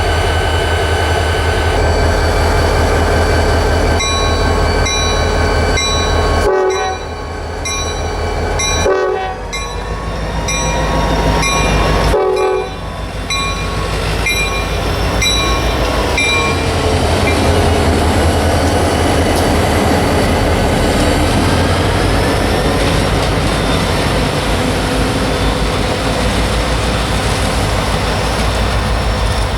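Diesel locomotive horn sounding several long blasts over a steady engine and rail rumble as a train passes. A grade-crossing bell rings steadily through the first half.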